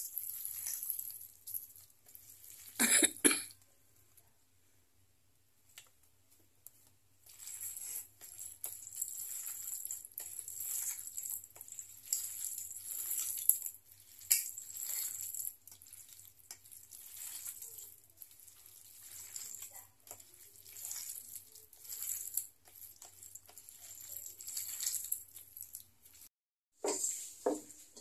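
A hand mixing spice-coated meat pieces in a steel bowl: an irregular run of wet squelching and scraping, with one louder burst about three seconds in and a short lull before the mixing picks up again. It cuts off shortly before the end.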